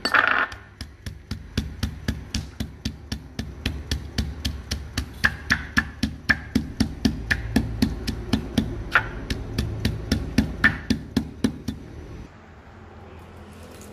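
Rhythmic knocking, about four sharp strokes a second, steady and evenly spaced, over a low hum; it stops about twelve seconds in.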